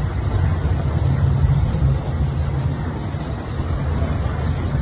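Steady roar of rushing floodwater, with wind rumbling heavily on the microphone.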